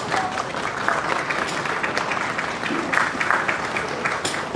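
Crowd applauding: many hands clapping at once, a dense, steady clatter.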